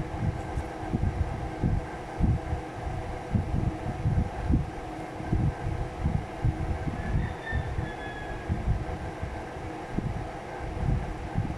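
Air buffeting the microphone: an irregular low rumble over a steady faint hum.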